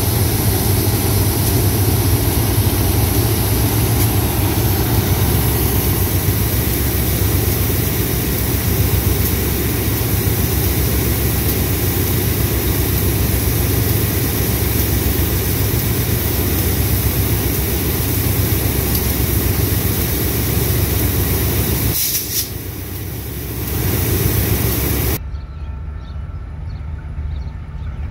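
GE diesel-electric locomotive running close by, its engine giving a loud, steady, heavy drone that dips briefly near the end. Near the end the sound cuts to a quieter, distant approaching train.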